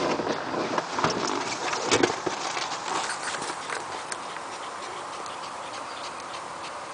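A handheld camera being moved: irregular clicks and rustles over the first few seconds, settling into a steady hiss with faint ticking.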